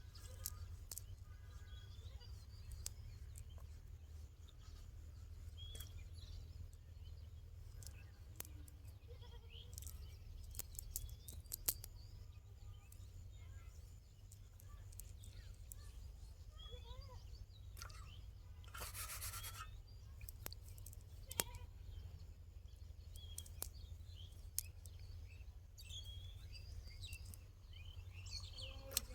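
Outdoor ambience: a low steady rumble with faint bird chirps scattered through it, small clicks and knocks, and a brief rustling burst about two-thirds of the way through.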